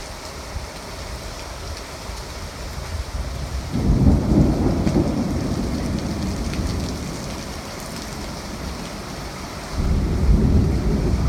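Steady rain on the surface with two rolls of thunder: the first swells about four seconds in and dies away over several seconds, the second breaks suddenly near the end.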